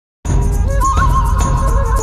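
Intro music with a steady beat and deep bass, starting a moment in.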